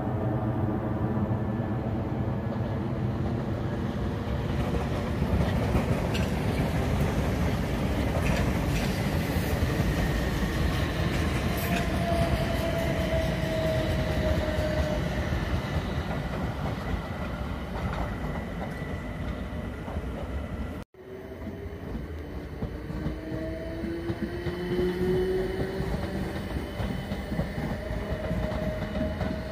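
South Western Railway Class 455 electric multiple unit running past on multi-track junction rails, with a steady rumble and wheels clattering over the track. A tone falls in pitch around the middle. After a sudden cut about two-thirds through, a train is heard running again with a tone that rises in pitch.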